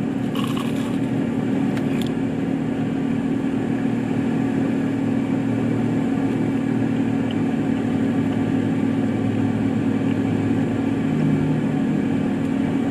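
A steady low mechanical hum, even throughout, with a couple of brief crackly rustles in the first two seconds.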